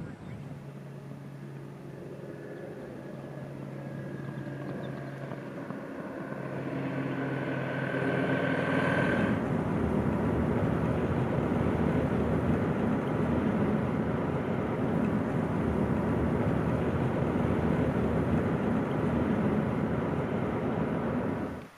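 Car driving along: the engine note climbs as it picks up speed over the first nine seconds or so, then gives way to a steady rush of road and wind noise at cruising speed.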